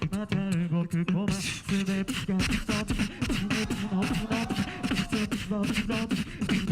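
Beatboxing: fast mouth-made kick, snare and hi-hat sounds layered with a hummed vocal bassline and sung melodic lines.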